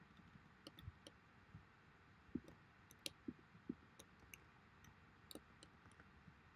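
Faint, irregular clicks of a computer keyboard and mouse while code is selected, copied and pasted, a dozen or so scattered keystrokes and clicks.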